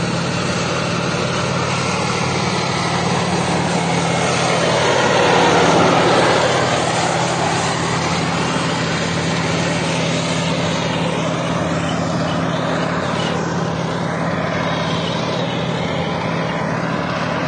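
Tank driving past, its engine running steadily with a low hum, growing louder as it comes closest about five to six seconds in and then easing off as it moves away.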